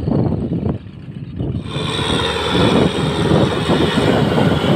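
Kubota M6040SU tractor's diesel engine running loud under load as the tractor, bogged in mud, strains to pull a loaded trailer.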